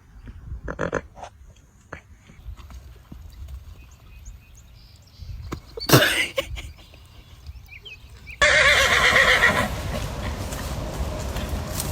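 A horse whinnying loudly for about a second and a half, a little over two-thirds of the way in, with low hoof thuds around it. Earlier come scattered knocks and one sharp, loud sound.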